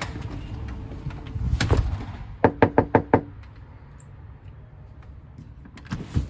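Five quick knocks on a door about two and a half seconds in, with a short ring after them. A single thump comes just before the knocks, and a few lighter clicks come near the end.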